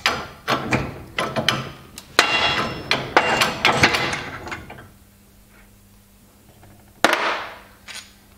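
Hand-pumped hydraulic bench press pushing the old needle roller bearing out of a Brose e-bike motor's sprocket carrier assembly: a quick, irregular run of metallic clicks and clacks from the press lever and ram for about four and a half seconds, then one sharp clank about seven seconds in.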